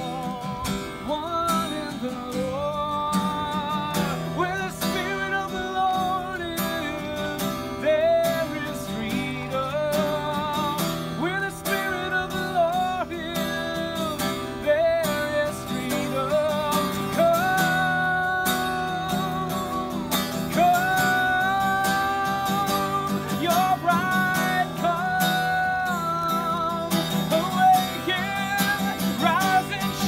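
A man singing long held notes with vibrato while strumming an acoustic guitar.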